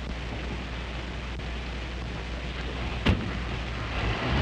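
Steady rain-and-storm noise with a low rumble, broken by a single sharp bang about three seconds in; the rumble swells near the end.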